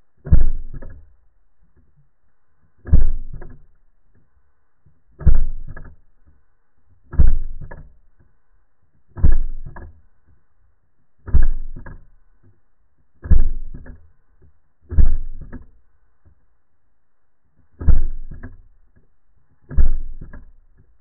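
Air pistol fired underwater ten times, roughly one shot every two seconds. Each shot is a dull, sudden thump that dies away quickly, with a second smaller knock just after it.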